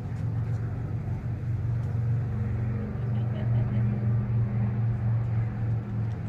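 A steady low engine drone, like a motor vehicle running, growing louder about two seconds in.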